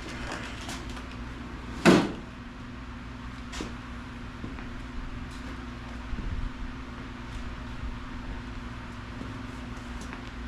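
One sharp knock about two seconds in, then a few faint scattered taps, over a steady low hum.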